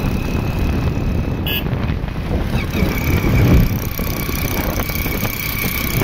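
Wind rushing over the microphone and a small motorcycle engine running while riding along a road.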